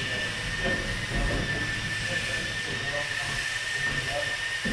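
Steady hissing noise with a constant high-pitched whine over a low, uneven rumble.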